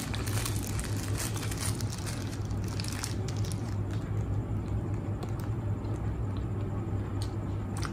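Close-up chewing of a mouthful of sauced shawarma: irregular small crackles and wet mouth smacks throughout, over a steady low hum.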